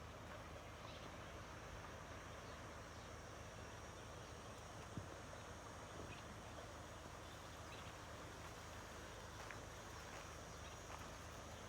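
Faint, steady rush of a river's running water, with a few faint clicks, one sharper about five seconds in.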